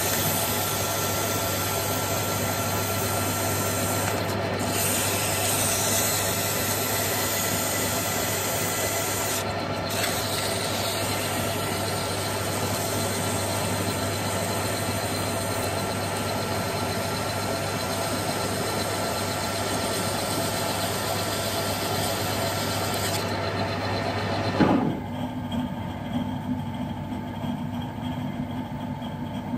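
Metal lathe running with a steady hum while its cutting tool faces the muzzle of a Snider-Enfield rifle barrel flat. The machine stops suddenly with a knock about 25 seconds in.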